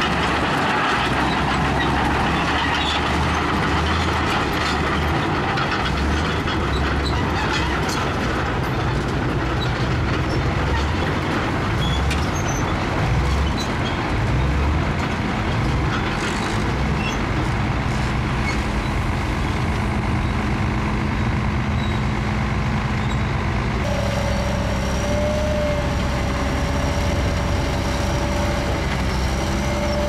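Heavy diesel earthmoving machinery at work, its engines rumbling and surging unevenly with load. About three quarters of the way through, the sound settles into a steadier engine drone with a thin steady whine over it.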